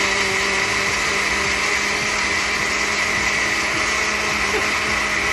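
Blender running steadily at one speed, puréeing the tomato salsa for chiles rellenos.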